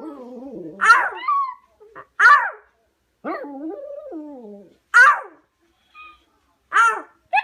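A dog vocalizing in a string of short, sharp barks that fall in pitch, with one longer drawn-out call in the middle that wavers up and down.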